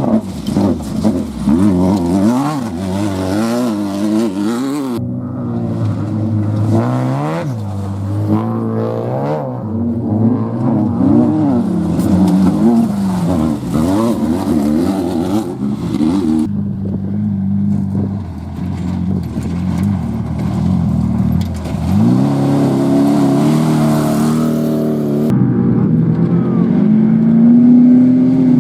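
Off-road race vehicle engines revving hard, the pitch swinging up and down every second or so as the throttle is worked over rough ground. The sound changes abruptly a few times.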